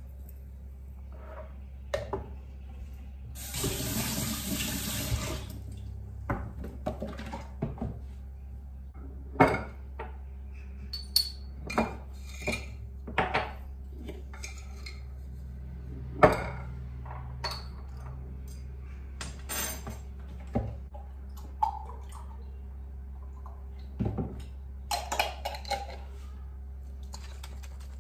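Kitchen clatter on a granite countertop: glasses, a glass jar and a milk carton being handled and set down, giving scattered knocks and clinks. A tap runs briefly about three and a half seconds in, and a steady low hum sits underneath.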